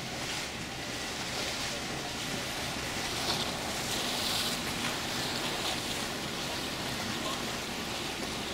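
Steady rush and splash of choppy seawater below a docking cruise ship, over a faint low hum.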